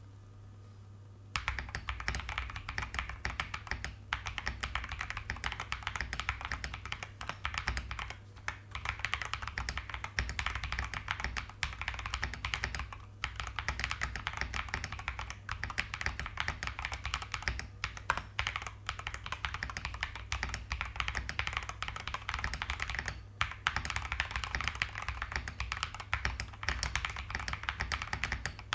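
Fast, continuous typing on a budget mechanical keyboard, a Feker JJK84 fitted with Ajazz Banana tactile switches and SA profile keycaps, tape-modded and foamed inside. The typing starts about a second in, with a few short pauses.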